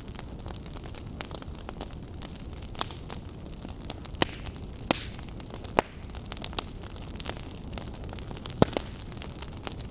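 Campfire burning: a steady low rumble and hiss with irregular sharp crackles and pops of burning wood, a few louder snaps standing out.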